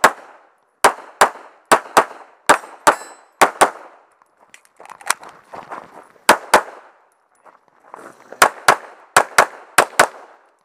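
Handgun fired rapidly, about twenty sharp shots, mostly in quick pairs, each with a short echo. The firing pauses briefly about four and seven seconds in.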